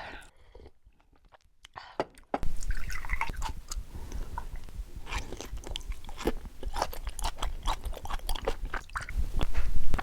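Close-miked chewing of yellowtail sashimi, with many wet mouth clicks and smacks. It starts about two seconds in, after a near-silent pause.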